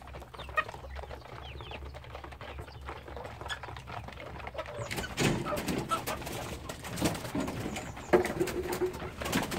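A flock of chickens clucking and making low murmuring calls as they crowd around a feeder to eat. The calls and scuffling grow busier and louder about halfway through.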